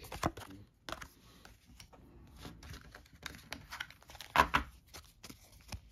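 Cardboard game cards being handled and laid down on a wooden table: scattered soft clicks and rustles, with one louder brushing knock about four and a half seconds in.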